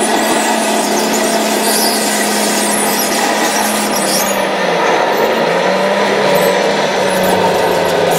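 Radio-controlled crawler dozer driving on its tracks: a steady whine of its electric drive motors and gearboxes, with a change in pitch about halfway through as it manoeuvres.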